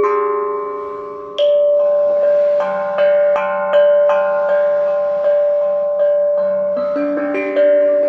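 RAV steel tongue drums struck with sticks: clear, pitched notes that ring on and overlap, a new note about every half second to second, in a slow melody.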